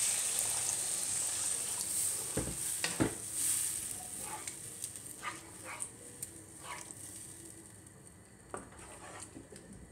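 Water poured into a hot nonstick kadai of fried spiced potatoes, hissing and sizzling, the sizzle dying down as it cools. A wooden spatula stirs and scrapes the pan, with two knocks against it a few seconds in.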